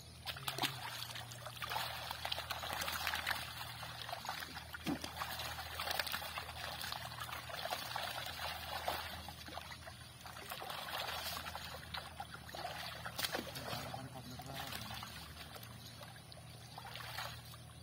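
Pond water splashing and trickling as a wet nylon fishing net is lifted and gathered by hand, with many small irregular splashes and drips.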